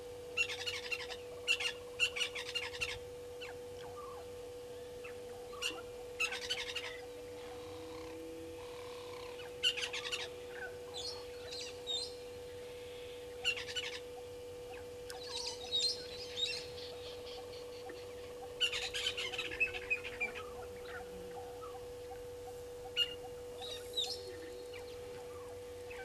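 Brown-headed parrots giving short, high-pitched calls in quick clusters, a new burst every few seconds.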